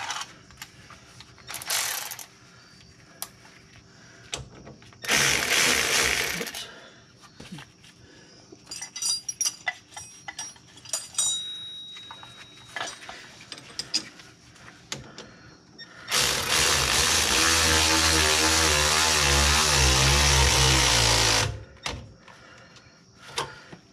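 Scattered metal clicks and taps of hand tools on a Mercedes ML W163's rear suspension, then, near the end, about five seconds of a red cordless power tool running steadily as it drives a shock absorber mounting bolt.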